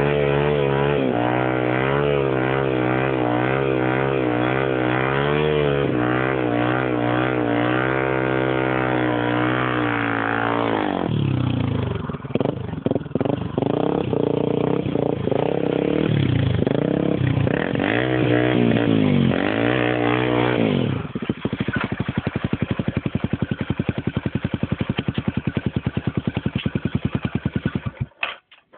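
Honda XR250 Tornado's single-cylinder four-stroke engine held at high, wavering revs for about ten seconds, then revved up and down several times, then settling to an even idle that cuts off just before the end.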